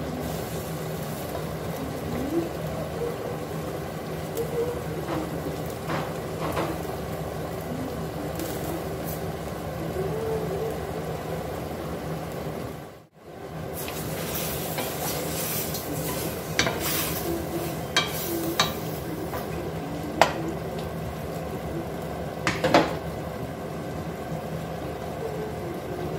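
A pot of mushrooms and chicken cooking on the stove, stirred with a spoon: a steady sizzle with several sharp clinks of the spoon against the pot in the second half. The sound drops out briefly about halfway.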